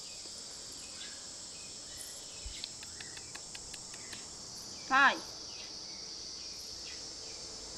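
A steady high chorus of crickets, and about five seconds in a single short, high cry from a baby macaque that slides steeply down in pitch.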